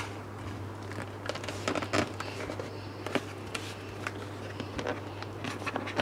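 Rustling, crinkling and small clicks of cardboard packaging being handled and opened, over a steady low electrical hum.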